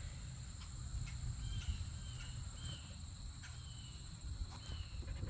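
Outdoor ambience: a steady high insect trill, with a bird giving short, slightly falling chirps every second or so over a low rumble.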